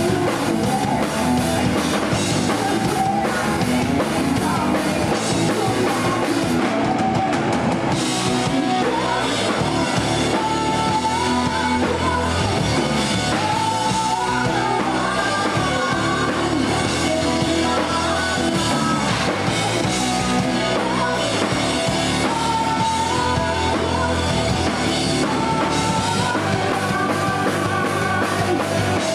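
Live rock band playing a song, with a woman singing lead over drum kit and guitars.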